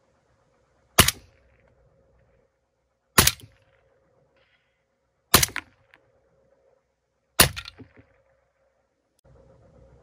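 Four suppressed rifle shots about two seconds apart from a .300 Blackout AR-15 wearing a titanium Dead Air Nomad-LT suppressor, firing 220-grain subsonic rounds. Each shot is a sharp report with a short ringing tail and no supersonic bullet crack.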